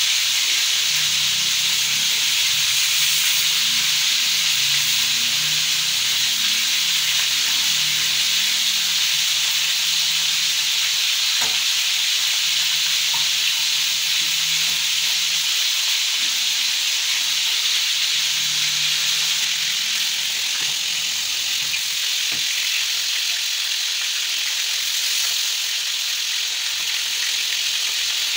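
Chicken pieces searing in hot cooking oil in a pan, a steady loud sizzle that carries on unbroken.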